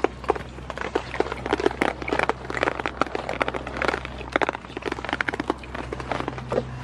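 Goats jostling close for treats, making a dense, irregular run of crunching and clicking noises over a steady low hum.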